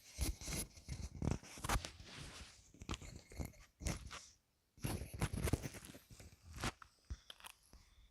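Sleeping woman's breath blown out through the lips, coming as irregular crackling puffs and clicks.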